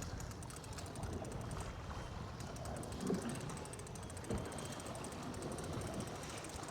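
Fishing reel clicking rapidly as line is cranked in on a hooked fish, a fast even ratchet-like ticking, with a couple of light knocks and a steady low rumble of wind and water around the boat.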